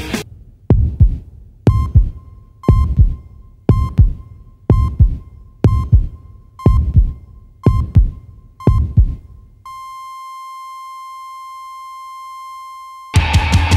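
Heartbeat sound effect: low thumps about once a second, each with a short electronic heart-monitor beep. The beats give way to one long steady monitor tone, a flatline, and heavy rock music cuts back in near the end.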